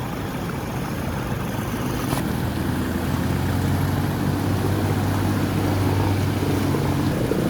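A motor vehicle's engine running, a steady low hum that grows louder from about two seconds in and cuts off suddenly near the end, over a rushing noise.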